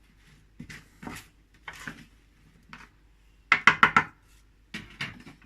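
Kitchenware being handled: scattered short clinks and knocks, with a quick rattling run of about half a dozen knocks a little past halfway, the loudest part.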